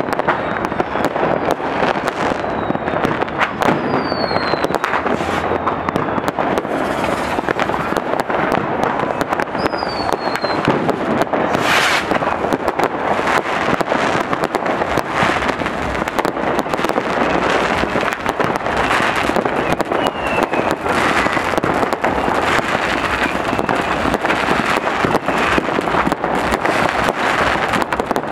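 Many fireworks and firecrackers going off at once in a dense, unbroken crackle of pops and bangs. A few whistling rockets slide down in pitch, and one louder bang comes about twelve seconds in.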